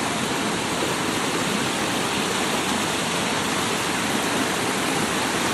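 River water rushing over rocks and small falls, a steady, even rush of water.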